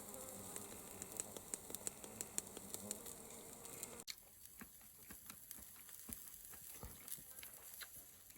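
Beef skirt steak sizzling on a small camp grill, with scattered crackles and pops of fat. It turns abruptly quieter about four seconds in, after which the pops are sparser.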